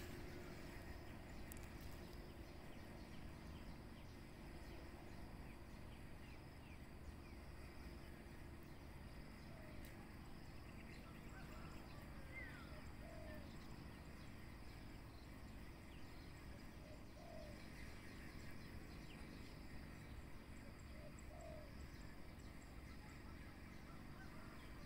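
Quiet outdoor ambience with faint, short bird calls repeating every few seconds from about a third of the way in.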